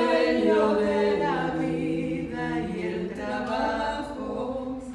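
A woman singing unaccompanied into a microphone, holding long notes that slide slowly in pitch; her voice fades near the end.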